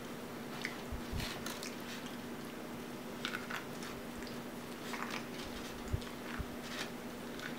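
Biting kernels off a cob of corn and chewing them: scattered short, moist clicks and crunches.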